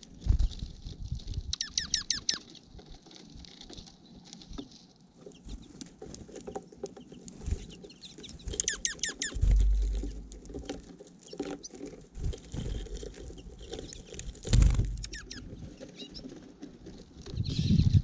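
Small finches and sparrows feeding on seed right at the microphone: frequent pecking clicks and seed rustling, with low thumps of wings and landings close by. Twice a quick run of high chattering call notes.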